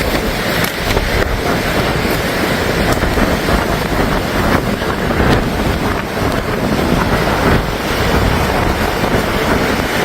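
Strong storm wind buffeting the microphone: a loud, steady rushing noise with a gusting low rumble.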